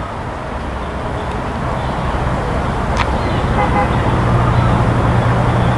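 Hi-rail truck's engine approaching along the track, a steady drone that grows louder. A single sharp click about three seconds in.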